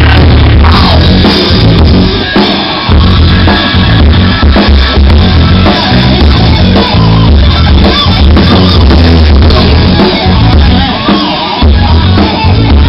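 Rock band playing live through a large outdoor PA, loud, with a drum kit and heavy pulsing bass.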